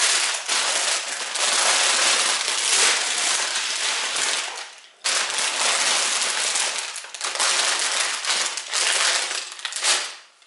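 Sealed plastic bags full of LEGO pieces crinkling as they are picked up and moved by hand, with a short break a little under halfway through.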